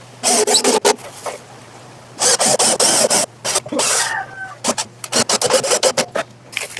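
Rasping strokes against the wood of a speaker box, in several bursts of about half a second to a second each. About four seconds in there is a brief falling whine.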